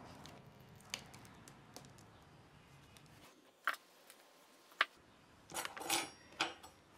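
Hand-building handling sounds on a leather-hard clay form: scattered small clicks and taps, two sharper clicks in the middle, then a brief run of short scrapes near the end as the piece is turned and worked with a carving tool.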